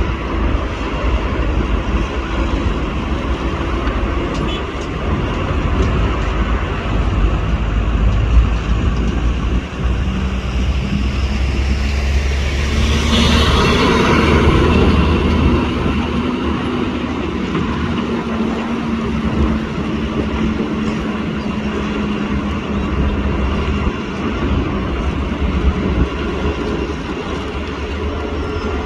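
Heavy engine running steadily with a low rumble and a held hum, swelling louder for a few seconds about 13 seconds in.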